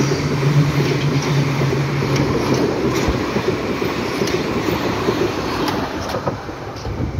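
Berlin U-Bahn small-profile train passing close by, its wheels rolling loudly and clacking now and then over the rail joints. A low hum runs under it and stops about two and a half seconds in. The noise drops as the last car goes by near the end.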